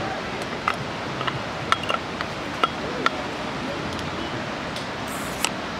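Glass beer bottles and their metal caps knocking together as hands try to pry a cap off without managing it: a string of sharp light clicks, most in the first three seconds and one more near the end, over a steady rushing background noise.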